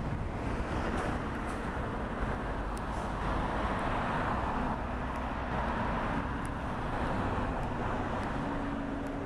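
Steady road traffic noise from a busy city street, a constant wash of passing cars. A low steady engine hum joins in near the end.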